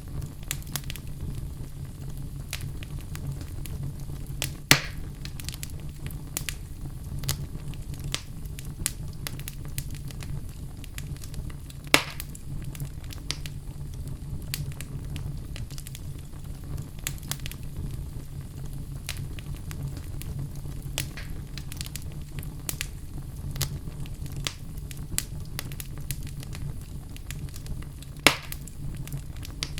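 Wood logs burning in a fireplace: a steady low rumble of flame with frequent small crackles. Three sharp, loud pops stand out, one about five seconds in, one about twelve seconds in and one near the end.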